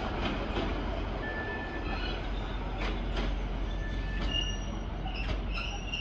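Rhaetian Railway shunting tractor moving slowly away with a string of flat wagons: a steady low rumble, with several short high wheel squeals and a few sharp clicks from the wheels over the yard tracks.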